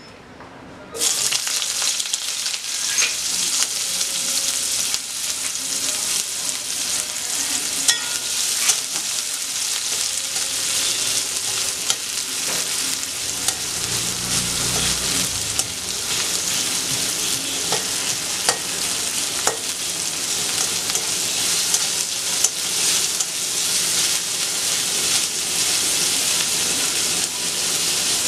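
Chopped onions sizzling steadily in hot oil in a metal wok, the sizzle starting suddenly about a second in. A metal spatula stirs and scrapes them against the pan, giving scattered clicks.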